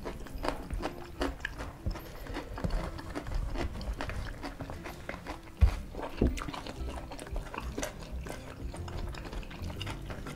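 Eating sounds of fried duck and rice eaten by hand: chewing, wet mouth smacks and fingers tearing the crisp duck, as many small irregular clicks and crackles. Two louder thumps stand out a little before and just after six seconds in.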